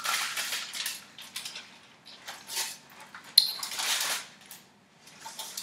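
Aluminium foil crinkling and rustling as a large whole raw fish lying on it is turned over by hand, with a sharp click about three and a half seconds in.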